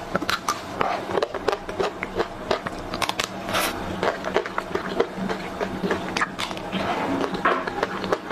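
Close-miked eating of a chocolate-coated ice cream bar with a nut-studded shell: a bite that cracks the crisp coating, then chewing with many small, irregular crackles and crunches.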